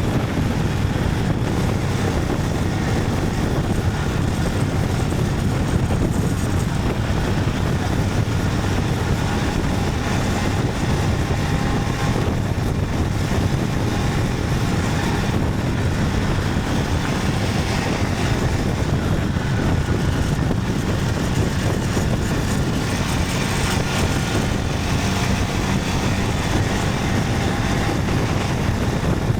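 Motorcycle riding at a steady pace: the engine running under a constant rush of wind and road noise.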